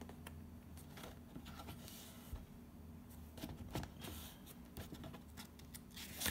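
Faint rustles and small ticks of a paper picture book being handled, scattered through the pause over a low steady hum.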